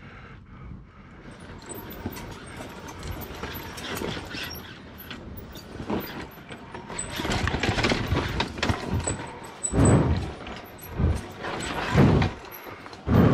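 KTM EXC 500 single-cylinder four-stroke dirt bike being ridden, the engine held low and then opened up in several short throttle bursts over the last few seconds, with scattered knocks and clicks throughout.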